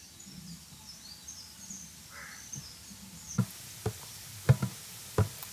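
Faint outdoor background with faint distant bird calls. From about three and a half seconds in come four or five sharp, irregularly spaced knocks.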